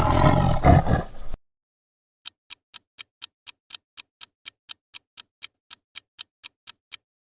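A tiger growling loudly, stopping about a second and a half in. Then a clock ticks steadily, about four ticks a second, for roughly five seconds.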